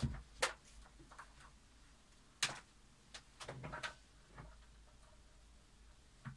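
Sparse light clicks and taps of multimeter probes and leads being handled, with a few separate knocks and a small cluster of clicks about three and a half seconds in.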